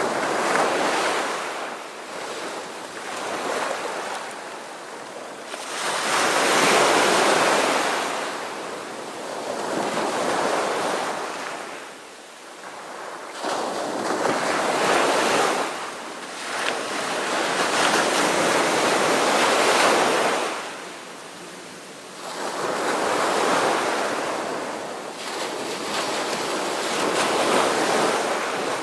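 Ocean surf: waves rolling in and washing back, the rush of water swelling and fading every few seconds.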